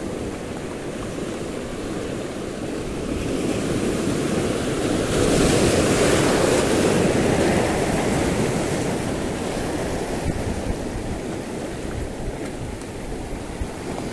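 Sea surf washing against the shore, with one wave swelling and breaking about five seconds in, then fading back to a steady wash.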